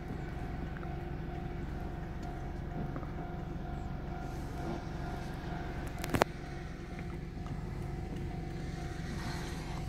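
Car idling, heard from inside the cabin: a steady hum, with a single sharp click about six seconds in.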